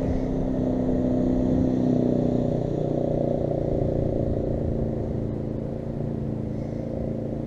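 An engine running steadily, a low hum with several constant-pitch tones, one of which fades out about two and a half seconds in.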